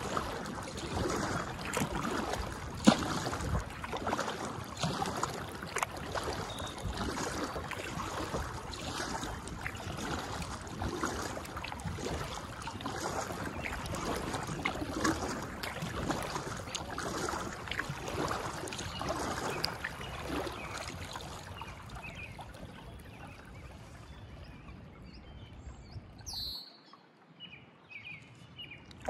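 Kayak paddle strokes: the blades splash and drip in the water about once a second, with one sharp knock a few seconds in. Near the end the paddling stops and a few short bird chirps are heard.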